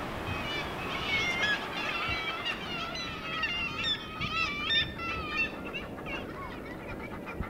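Seabird colony calling: many gulls, kittiwakes and other seabirds calling over one another, thickest in the middle and thinning near the end, over a steady hiss of wind and sea.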